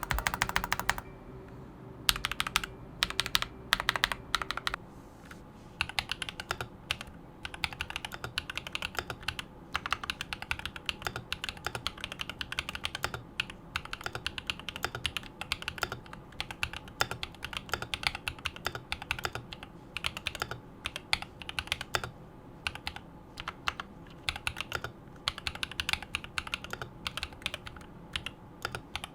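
Typing on a mechanical keyboard with lubed Holy Panda tactile switches: a fast, continuous stream of keystrokes, with a few louder bunches of strokes in the first few seconds.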